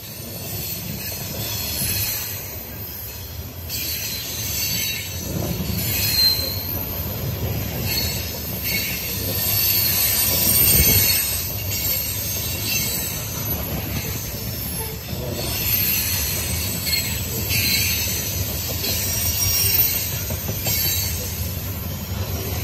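CSX coal train's open-top coal cars rolling past on steel wheels, a continuous rumble from the track with high-pitched wheel squeal coming and going.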